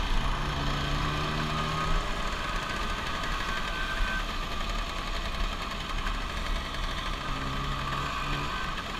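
Vespa scooter engines running as a group rides along, a steady low engine buzz from the rider's own scooter and those just ahead. A steadier pitched engine note stands out briefly near the start and again near the end.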